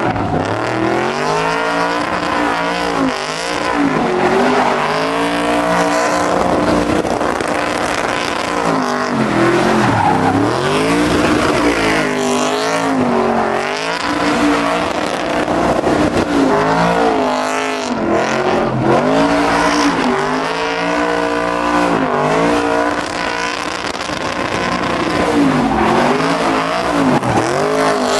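Pickup truck engine revving hard up and down again and again during a burnout, its rear tyres spinning on the pavement.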